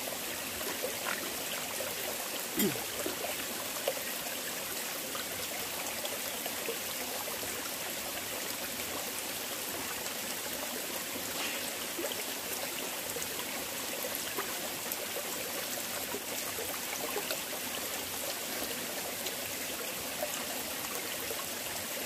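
Small mountain stream running steadily over rocks, a continuous trickling and babbling, with a few faint clicks here and there.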